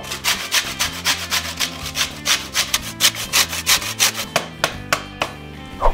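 A lime rubbed on a metal box grater: quick, even rasping strokes, about five a second, as the peel is zested off.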